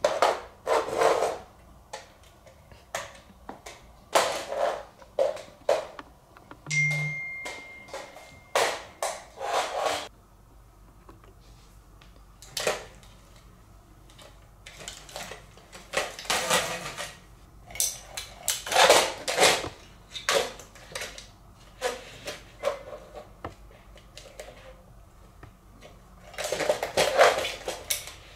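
A hard plastic cat toy clattering, knocking and scraping on a hard floor as a cat bats, drags and bites it, in irregular clusters of knocks with short pauses between. About seven seconds in, a brief steady high beep is heard.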